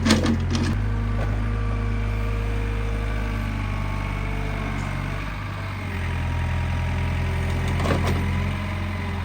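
Excavator's diesel engine running steadily, its note shifting a couple of times as it works under load.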